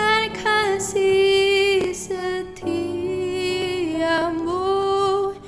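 A woman singing a slow Indonesian worship song over piano and keyboard, holding long notes.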